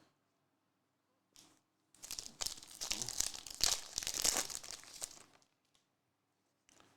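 A trading card pack's wrapper crinkling as it is torn open by hand, for about three and a half seconds.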